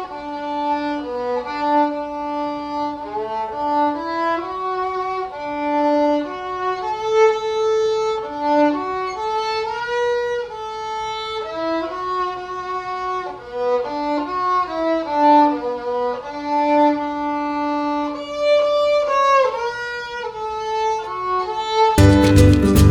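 Background music: a solo violin melody of held and sliding notes. About a second before the end it cuts suddenly to louder strummed guitar music.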